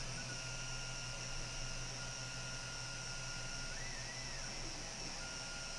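Steady low electrical hum and hiss with a thin high whine that rises briefly in pitch about four seconds in; no distinct handling or tool sounds.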